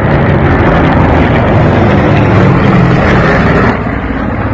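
Loud drone of propeller aircraft piston engines mixed with heavy rushing noise, dropping off abruptly near the end.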